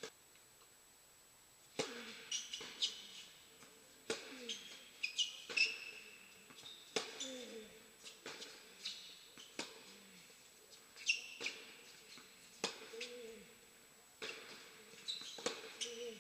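Tennis rally on an indoor hard court: sharp racket-on-ball hits come every two to three seconds, starting about two seconds in, with high sneaker squeaks on the court after each shot.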